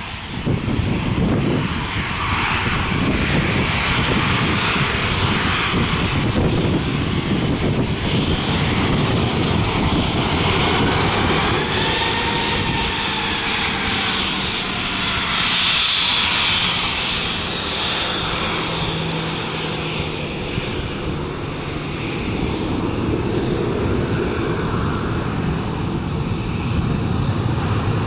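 Boeing 737-800's CFM56 jet engines whining at taxi power as the airliner rolls past, over a steady low rumble. The whine bends up and back down in pitch about halfway through as the jet passes closest.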